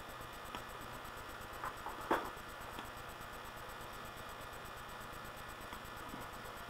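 Steady low electrical hum and hiss of a webcam microphone, with a few soft clicks, the loudest about two seconds in.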